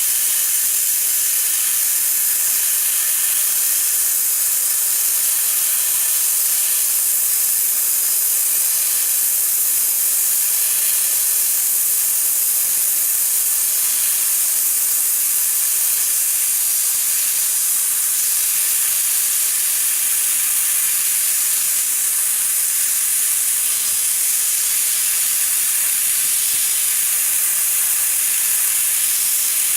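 CNC laser cutting machine running: a steady, unbroken high-pitched hiss.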